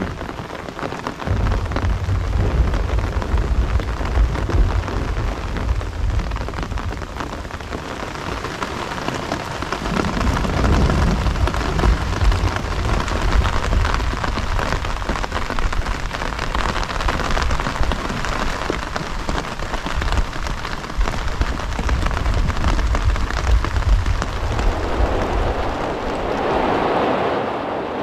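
Steady rain falling on the rainfly of a Gazelle T3X tent, a dense patter of drops, with a low rumble underneath that stops near the end.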